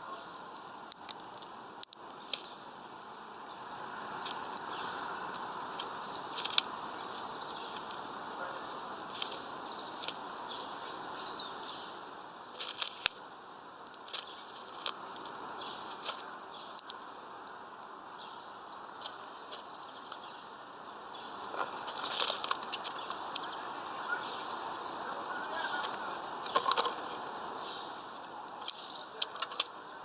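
A hawfinch and a smaller finch pecking and cracking sunflower seeds on a feeder tray: scattered sharp clicks of seeds and husks, with short rustles and wing flutters, loudest a little over twenty seconds in.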